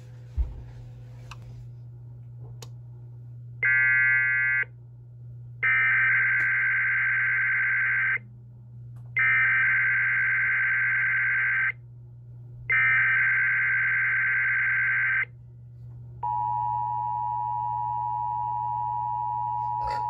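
NOAA Weather Radio Required Weekly Test received on an EAS decoder: a one-second burst about 4 s in, then three bursts of SAME digital header data, each a harsh two-tone chirping about two and a half seconds long with a second's gap between them. From about 16 s a steady two-tone alert tone runs on.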